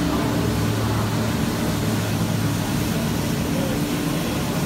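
Olympia ice resurfacer's engine running steadily as the machine drives on the ice, a low hum over an even background hiss.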